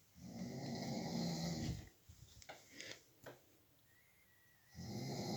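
A sleeping adult snoring: one snore lasting about a second and a half, a few faint clicks, then the next snore starting near the end.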